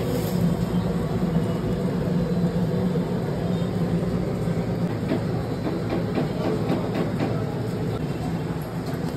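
Steady low rumble and hum of a busy railway-platform food stall, easing a little in the second half, with scattered light clicks and knocks.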